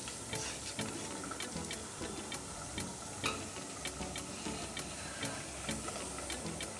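Prawn biryani simmering on a low flame in an open aluminium pressure cooker: small bubbles popping in the thick rice liquid as a run of irregular clicks, about three a second, over a low bubbling.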